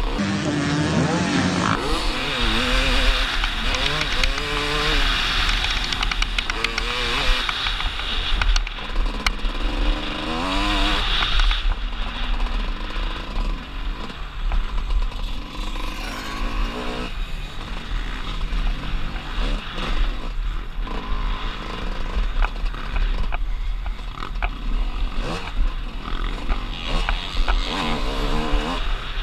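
Off-road dirt bike engine heard from on board, revving up and falling back again and again as the bike accelerates, shifts and brakes over a rough dirt track, with a heavy low rumble underneath.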